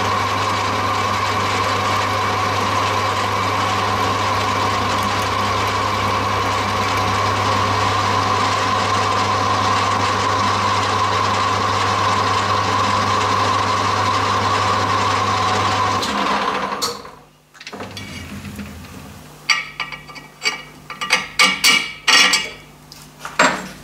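Metal lathe running steadily while boring a hole in a cast aluminium table, with a steady hum and a high whine; it stops about sixteen seconds in. Near the end, a few irregular clicks and scrapes as a 12 mm threaded rod is tried in the freshly bored hole.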